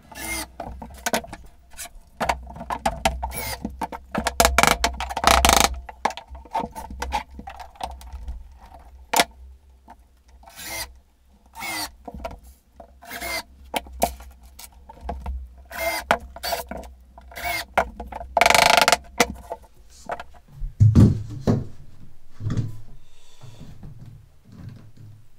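Cordless drill/driver driving finish screws into pine floorboards in short runs, with knocks and clatter of boards and tools handled on the wooden floor.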